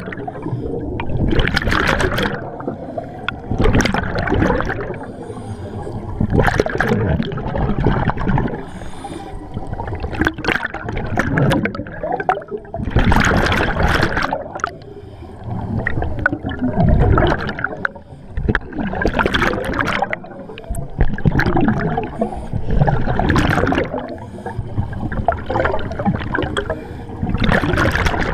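Scuba regulator exhaust: air bubbles rushing and gurgling past a camera in its underwater housing, in loud surges every two to four seconds with each diver's breath, and a steady underwater churn between them.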